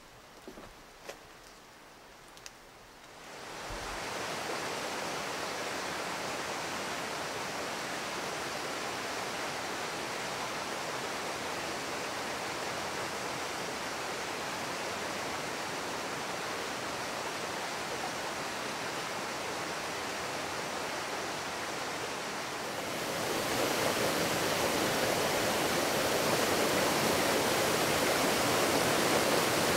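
River water rushing through a rocky gorge: a steady wash of flowing water that comes in a few seconds in, after a few faint clicks, and grows louder about two-thirds of the way through.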